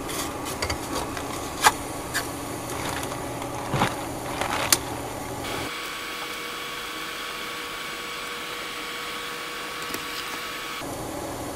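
Steak sizzling as it sears in a hot stainless-steel pan on an induction cooktop, with a few sharp clicks and clinks of the meat and tongs against the pan in the first few seconds. About halfway through the sizzle turns to a steadier, higher hiss.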